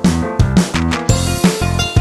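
Background music with a steady, quick beat: sharp drum hits over held bass and melody notes.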